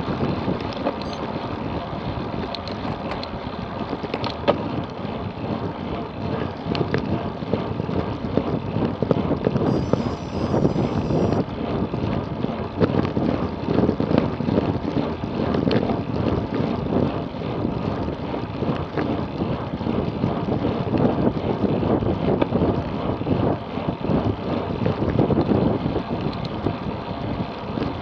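Wind rushing over the microphone of a camera on a road bike riding at speed, a steady buffeting noise that swells and dips.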